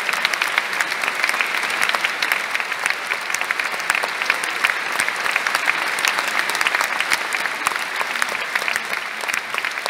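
Large theatre audience applauding steadily, a dense crowd clapping during a curtain call.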